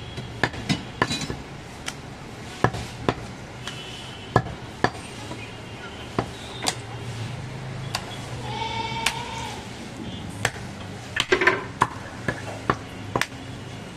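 Large butcher's knife chopping goat meat and bone on a wooden stump chopping block: sharp single chops at irregular intervals, about one a second, with a quick flurry of chops about three-quarters of the way through.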